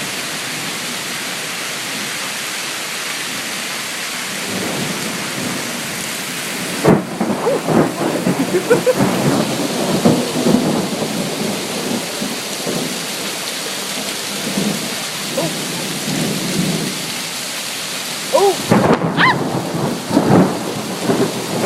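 Hailstorm with rain coming down in a steady hiss. From about seven seconds in, hailstones hit hard surfaces in an irregular clatter, some striking with short ringing pings.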